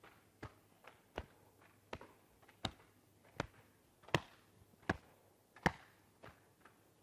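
Open hands slapping the body over clothing in a series of sharp pats, about eleven at an uneven pace, several people's slaps mixed: qigong self-patting down the shoulders and along the ribs. The loudest slaps fall a little past the middle.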